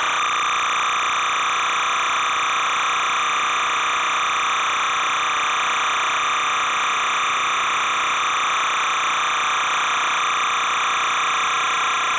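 Steady, unchanging hiss with no distinct events.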